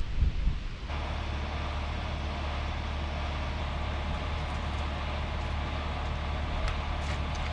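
A motor running steadily with a low hum, starting abruptly about a second in after gusty wind noise on the microphone.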